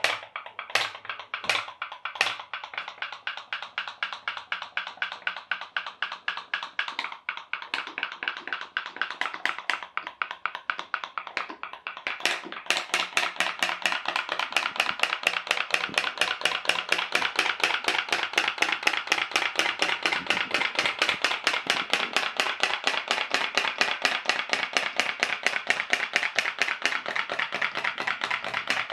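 Homemade pop-pop boat's aluminium-tube boiler popping in rapid, even pulses as the water in it boils, heated by a small cube of firelighter. A few separate pops in the first couple of seconds settle into a fast, steady putt-putt that gets louder about twelve seconds in.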